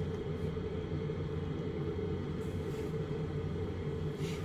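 Steady low rumble with a faint hum, unchanging throughout: room background noise.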